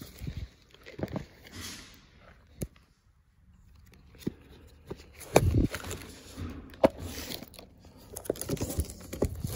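Binders and photo albums being handled: plastic page sleeves rustling and crinkling, with scattered knocks and clicks as binders are shifted. There is a louder thump about five and a half seconds in.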